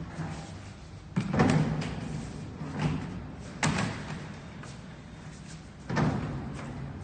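Full plastic paint buckets being lifted off a truck bed and set down on a concrete floor: four dull thuds, the first about a second in and the loudest, the last near six seconds.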